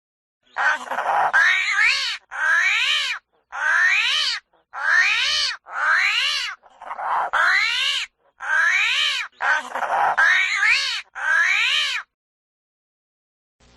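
An animal calling about ten times in a row, each cat-like call rising and then falling in pitch, with short pauses between calls.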